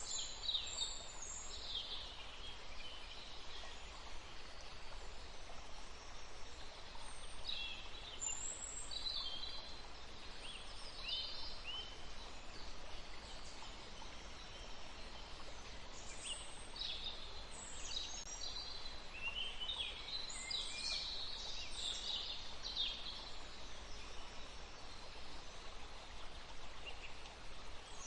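Several small birds chirping and singing in short bursts over a steady rush of flowing stream water. The bird calls come in clusters at the start, about a third of the way in, and again through the middle.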